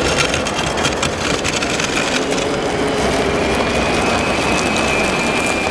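Radio-controlled scale model machines at work: clattering and rattling for the first two seconds or so, then a thin, steady, high electric-motor whine over a dense background din.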